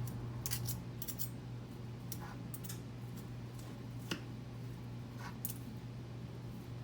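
Metal forks scraping and clicking against a dish while shredding cooked chicken: a string of short, irregular scrapes, the sharpest about four seconds in. A steady low hum runs under them.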